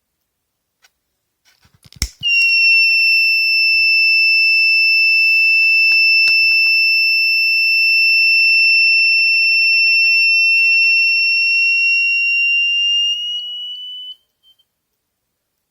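Buzzer of a 10K NTC thermistor temperature alarm sounding, the alarm tripped by the temperature crossing its set point: a click, then one steady high-pitched tone for about twelve seconds that rises slightly in pitch and weakens near the end before cutting off.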